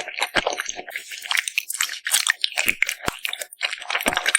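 Close-miked eating sounds of salmon being bitten and chewed: wet, smacking chews with frequent quick crunchy clicks.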